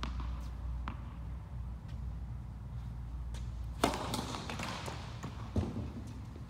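A tennis ball bounced twice on an indoor hard court before a serve, then the sharp pop of the racket striking the ball on the serve about four seconds in, ringing in the large hall. A duller thud follows about a second and a half later, over a low steady hum.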